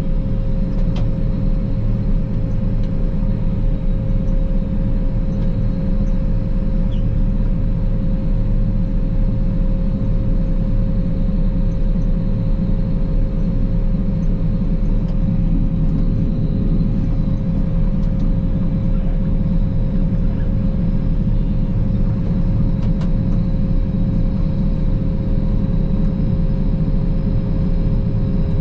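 Claas Lexion 480 combine harvester running steadily while harvesting rapeseed: a constant low drone with a steady whine held over it.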